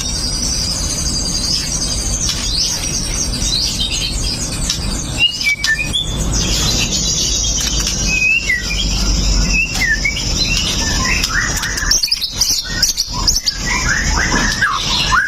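White-rumped shama singing a fast, varied song of sharp whistles, chirps and quick up-and-down pitch sweeps, strung together with hardly a break.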